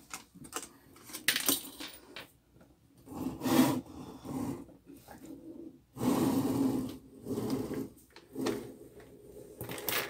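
Aluminum LED light panel being handled and flipped over: a series of metallic clanks, rattles and scrapes, loudest about three and a half seconds in and again around six to seven seconds in.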